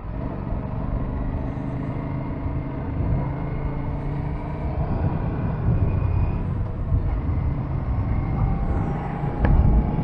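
Aprilia RS 457's parallel-twin engine running while under way, with wind rumble on the helmet or action camera. The engine note holds steady, then rises slowly in pitch near the end, and there is a single short click just before the end.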